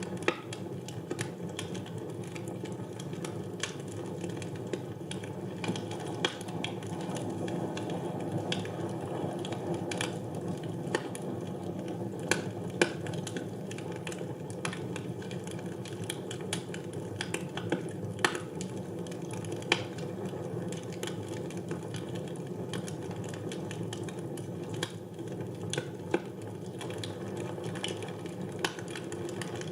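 Wood fire burning in a fireplace: a steady low rumble of flames with frequent irregular crackles and pops, a few of them sharper and louder than the rest.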